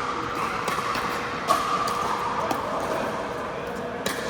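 Pickleball paddles hitting the hard plastic ball in a rally: a few sharp pops, the loudest about a second and a half in, ringing in a large indoor hall.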